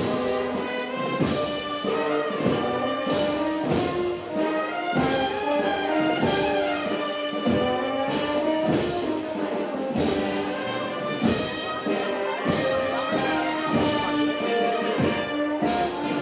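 Brass band playing a slow processional march: a brass melody over regularly spaced drum strikes.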